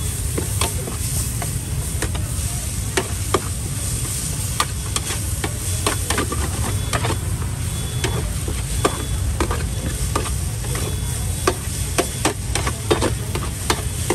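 Street-stall cooking: utensils clinking, tapping and scraping at irregular intervals against a pan, over a steady sizzle of food frying.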